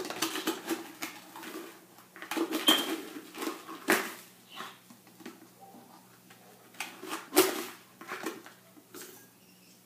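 Brown sugar being scooped and measured out of a plastic container and bag: irregular plastic scrapes, rustles and taps of a measuring cup, with a few sharper knocks.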